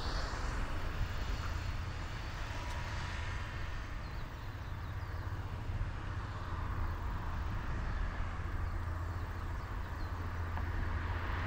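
BMW 320i (F30) sedan approaching along the road, its tyre and engine noise growing louder near the end, over a steady low rumble.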